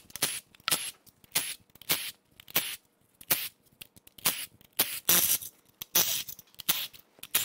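Cordless ratchet running in many short bursts, about two a second, backing bolts out of the aluminium timing cover of a BMW B38 three-cylinder engine.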